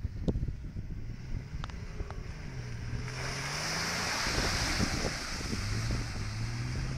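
A 4x4 SUV's engine revving up and down as it spins and slides through mud. A rushing hiss of flung mud and spinning tyres builds about three seconds in, mixed with wind on the microphone.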